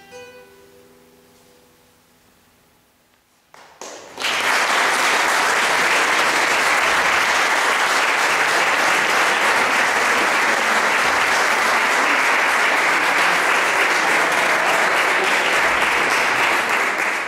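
Last notes of a classical guitar ringing out and fading away, then, about four seconds in, an audience starts applauding and keeps clapping steadily at full strength.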